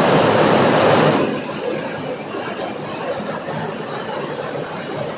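Heavy rain pouring down in a dense, steady hiss, a little louder for the first second before settling slightly lower.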